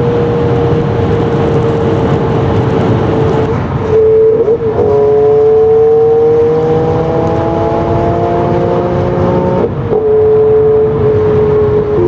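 Car engine pulling hard under acceleration with tyre and road noise, heard from inside a car's cabin; the engine note climbs slowly for several seconds and drops abruptly about ten seconds in at a gear change.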